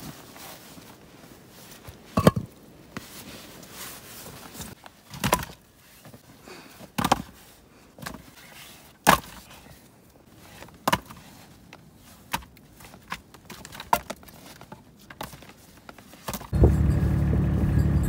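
Scattered sharp knocks, one every second or two, against a quiet background. Near the end it switches suddenly to a loud, steady rush of blizzard wind buffeting the microphone.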